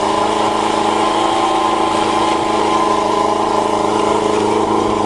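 Motorcycle engine of a home-built dune buggy idling at a steady, even pitch, freshly started on starting fluid and still cold.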